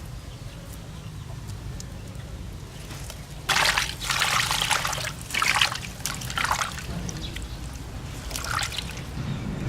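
Water pouring and splashing in a few loud bursts, starting about a third of the way in, with a shorter splash near the end.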